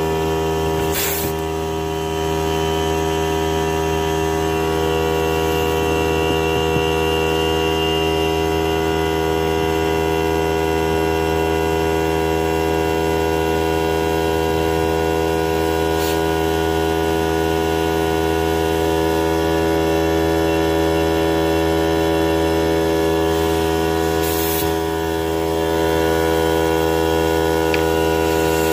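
Air compressor running steadily with a dense, even hum while it feeds an air chuck inflating a trailer tire's inner tube. Short hisses come about a second in and again near the end.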